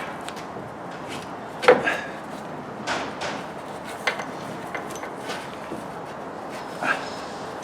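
Irregular knocks and clunks of tools and parts being handled while a front lower control arm is fitted to the suspension, about five separate knocks, the loudest a little under two seconds in.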